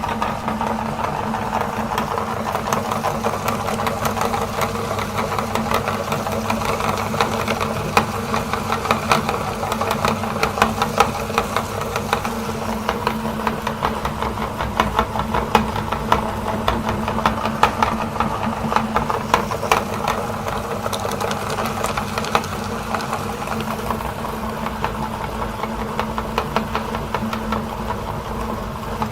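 Electric meat grinder running steadily with a constant motor hum while it grinds chocolate bars, with many sharp cracks and clicks from the chocolate being crushed, thickest in the middle stretch.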